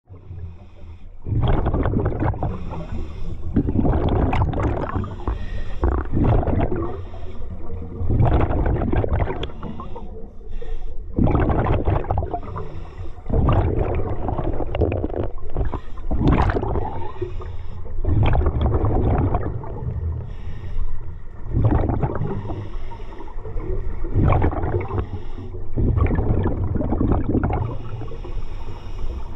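Scuba regulator breathing underwater: surges of exhaled bubbles about every two to three seconds, with quieter breathing between.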